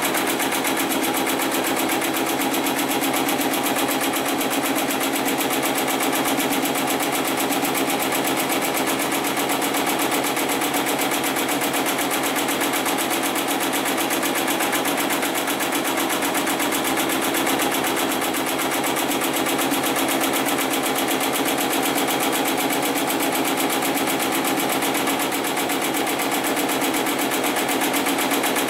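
Hightex 75008 heavy-duty computer-controlled pattern sewing machine running steadily, its needle stitching through several plies of synthetic webbing sling in a rapid, even rhythm of strokes.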